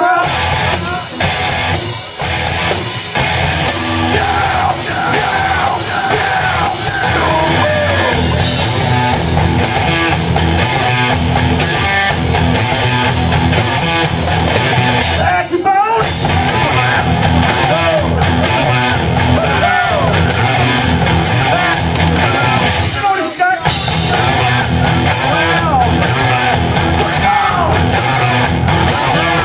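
Live heavy rock band playing loud, with electric guitar, drums and yelled vocals; the playing breaks off briefly about 16 seconds in and again about 23 seconds in.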